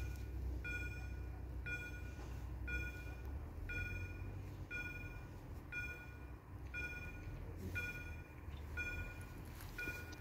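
Railway level crossing warning bell ringing, a bright electronic ding repeating about once a second with the barriers down: the crossing is closed for an approaching train. A low steady rumble runs underneath.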